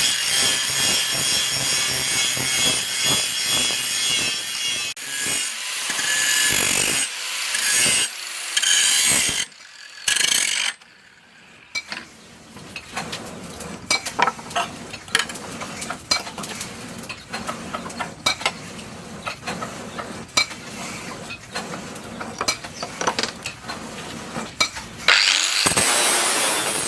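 Steel knife blank cut from a tractor disc being worked by hand, with rasping strokes of a file or saw on metal. About ten seconds in the scraping breaks off, and a long run of small clicks and taps follows before the scraping starts again near the end.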